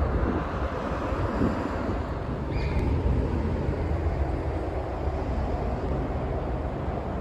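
Outdoor street ambience: a steady low rumble with no speech. A brief high tone sounds about two and a half seconds in.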